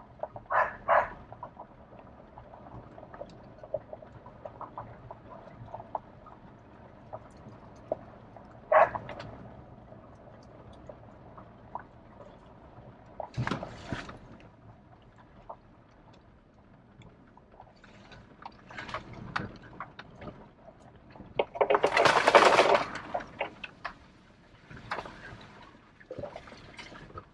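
A vehicle rolling slowly along a dirt trail, with a dog barking twice right at the start. About three quarters of the way in comes the loudest sound: a splash and slosh as the vehicle drives through a muddy puddle, throwing water over the windshield.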